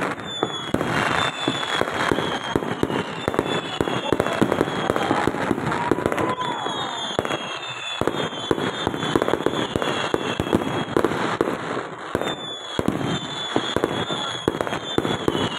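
Fireworks going off in a dense, continuous barrage of rapid crackling and popping, with many high whistles falling in pitch over it.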